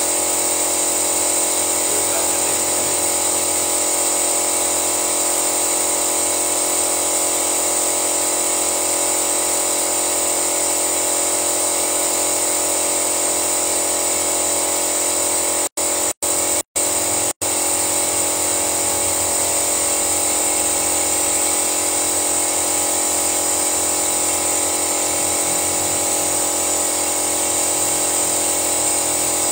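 Car engine running steadily during an engine flush, a constant hum with a high whine over it. The sound cuts out briefly four times about 16 to 17 seconds in.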